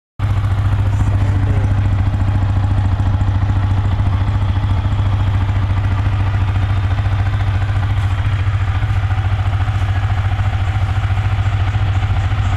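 Yamaha R15 V3's 155 cc single-cylinder engine idling steadily through its exhaust, with no revving.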